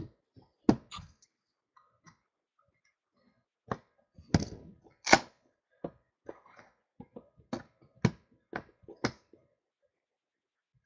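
Trading-card box being opened and handled: its metal clasps and hinged lid clicking and knocking, and the contents bumped as they are lifted out. A string of separate sharp clicks and thunks, the loudest about five seconds in.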